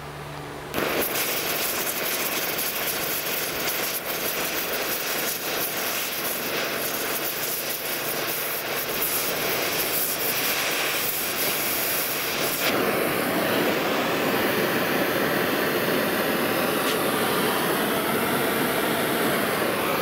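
Oxy-fuel gas torch flame hissing steadily while it heats a 1/4-inch steel band-iron bar in a vise to bend it. The hiss starts suddenly about a second in and changes tone about two-thirds of the way through.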